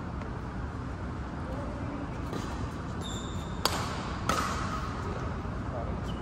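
Badminton rally: two sharp racket strikes on the shuttlecock a little over half a second apart, with brief high squeaks of shoes on the court floor, over a steady low hum of the hall.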